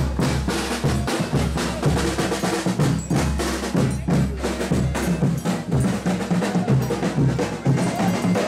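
Folia de Reis band playing a chula: drums and snare keep a quick, steady beat over a low, repeating bass line.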